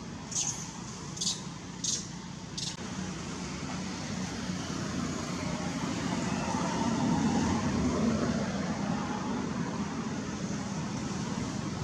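Steady outdoor background rumble and hiss that swells a little midway, with four short high-pitched chirps in the first three seconds.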